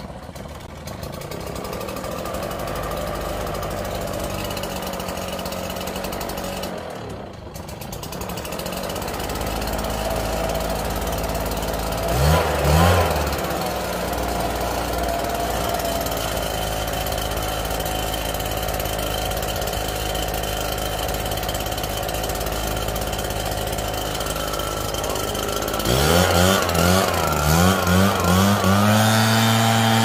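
Small petrol engine of a backpack leaf blower running at idle, dipping briefly about seven seconds in and revved up once around twelve seconds. Near the end it is revved up and down repeatedly.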